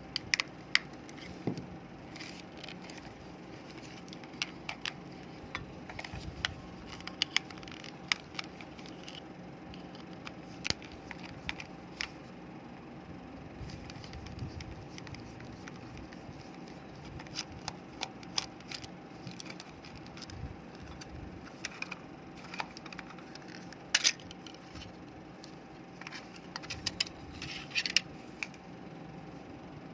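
Scattered small clicks and taps of a plastic computer mouse being handled and opened up, with a steady faint hum underneath.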